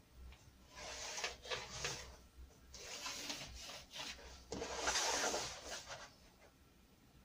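A long steel rule and a pencil rubbing over a flat board as lines are ruled out. There are three scraping spells of about a second each: about one, three and five seconds in.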